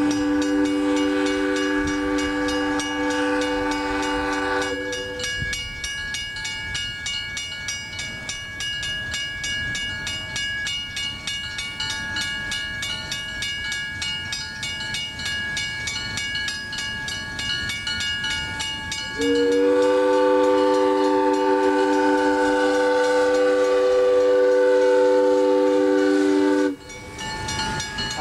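Railroad grade-crossing bell ringing in rapid, even strokes while a passing train sounds its multi-note horn in two long blasts, the first ending about five seconds in, the second starting about two-thirds through and cutting off shortly before the end.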